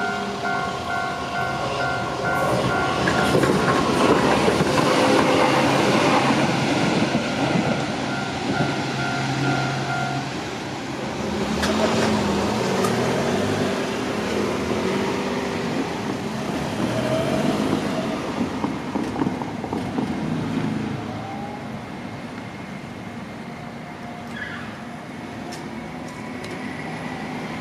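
Japanese level-crossing warning bell ringing in a steady repeating two-pitch ding while a Shizuoka Railway electric train rumbles through the crossing; the bell stops about a third of the way in. Motor noise with rising stepped tones follows and fades, leaving steady traffic noise near the end.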